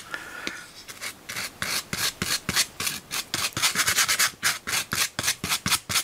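Paintbrush scrubbed back and forth on a paper towel in quick scratchy strokes, several a second, working the silver paint off the bristles.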